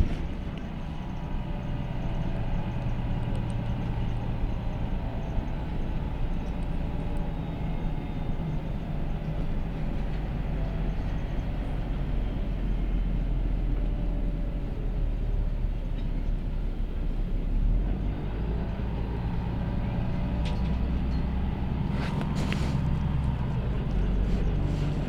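LiAZ bus engine running with a steady low drone whose pitch shifts a little. A few brief sharp hissing or clicking noises come near the end.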